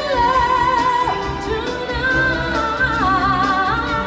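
Live stage-show singing over a backing track, with voices holding long notes with vibrato. The melody steps up higher about halfway through.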